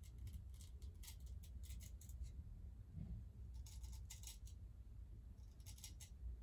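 Straight razor scraping stubble off the upper lip, cutting against the grain with an upward pass. The whiskers crackle faintly in several quick runs of short strokes.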